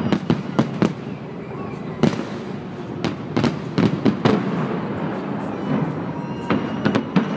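Fireworks salute heard from a distance: a string of irregular bangs and cracks from bursting shells, echoing, over a steady background hum.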